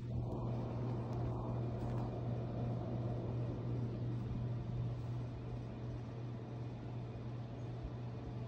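Steady low hum with an even hiss, a constant machine or room background noise such as a fan or appliance running; somewhat fuller in the first few seconds, then level.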